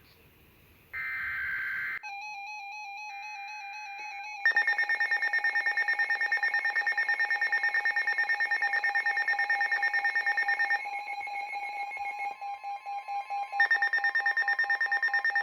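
Weather radio alert signalling: the last burst of a SAME digital header, a short buzzy screech ending about two seconds in, then a loud, rapidly pulsing electronic alarm tone that marks an incoming warning, changing its pattern a couple of times.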